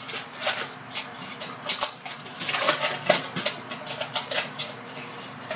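Panini Prizm basketball cards being handled and flipped through by hand: a quick, irregular run of soft clicks and slick swishes as the glossy cards slide off one another.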